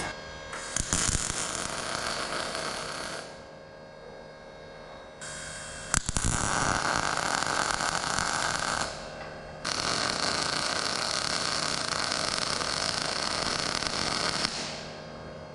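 Electric arc welding: three welds in a row, the arc hissing and crackling steadily for about two, three and a half and five seconds, each starting and stopping abruptly, with a sharp snap as the second one strikes.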